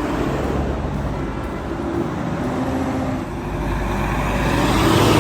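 Tractor-trailer truck driving, a steady engine rumble with road noise that grows louder toward the end, as if it is approaching.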